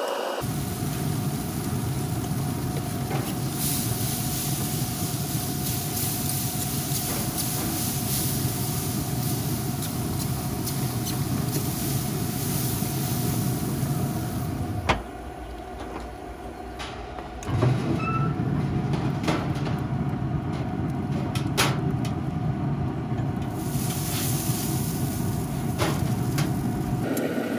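Steady hum and rush of a running pellet grill, with scattered sharp clicks of metal tongs as ribs are handled on the grate. The noise drops for a few seconds a little past halfway.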